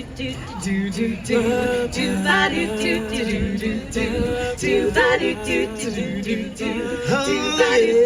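A vocal group singing a cappella in several-part harmony, the voices sliding between held notes.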